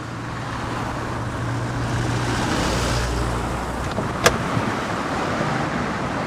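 Rumbling wind and movement noise on a body-worn action camera as the wearer runs downhill, with one sharp knock about four seconds in.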